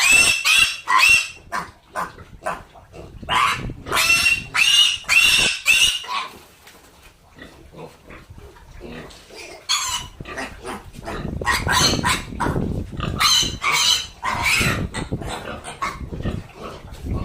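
A pig squealing again and again in short, loud, high cries while it is caught and held for a vaccination, with a quieter lull in the middle before the squealing starts up again.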